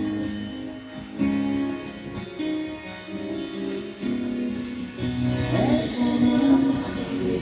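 Amplified guitar playing a slow melodic line of held notes with the band during a soundcheck. Wavering, bending pitches join about five seconds in.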